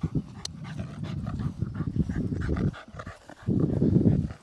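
Australian cattle dog panting hard close by, in two bouts, the second short and loud about three and a half seconds in.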